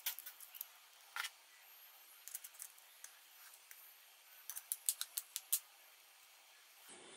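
Small sharp plastic clicks and taps as a Lenovo A369i phone's battery and back cover are fitted by hand, with a quick run of clicks about four and a half seconds in as the back cover snaps into place.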